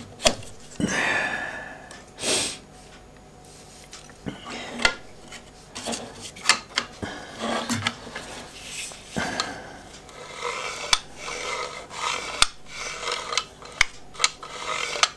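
Hands fitting a 3D-printed plastic disc, a metal pin and plywood parts together, making scattered sharp clicks and taps with rubbing and rustling in between.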